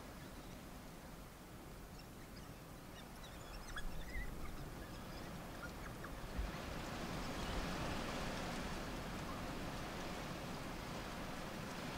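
A few faint, short high squeaks from African wild dog pups a few seconds in. Then a steady rustle of dry grass and brush grows louder about halfway through as the dogs push through it.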